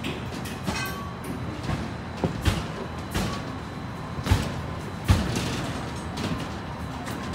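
Construction-site background noise on a post-tension slab deck: a steady low rumble with a few sharp knocks, two close together about two and a half seconds in, then one at about four seconds and one at about five seconds.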